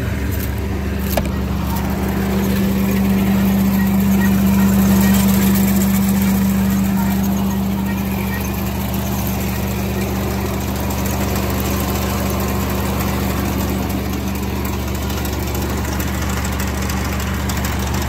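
Rice combine harvester's engine running at a steady speed, a constant low drone that swells slightly a few seconds in.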